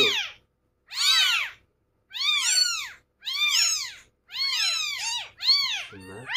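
Newborn kittens, eyes not yet open, crying: about six loud, high-pitched mews, each rising then falling in pitch, roughly one a second. They are hungry kittens abandoned by their mother.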